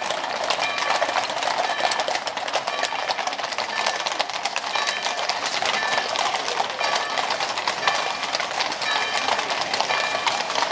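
Many horses' hooves clattering on brick paving as a mounted column walks past, a dense, continuous clatter of overlapping hoof strikes.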